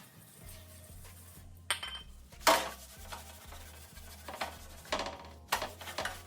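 Metal clinks and clanks of workshop tools or lifting gear being handled, with one louder knock about two and a half seconds in and more frequent clinks near the end, over quiet background music.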